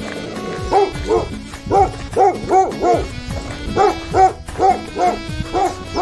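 Dog barking repeatedly in quick runs of two or three sharp barks, about a dozen barks in all.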